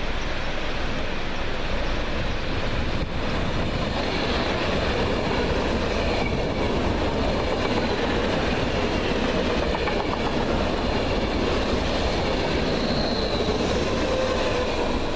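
Train passing through a station, a steady loud rolling noise of wheels on rails with faint high tones drifting in pitch above it.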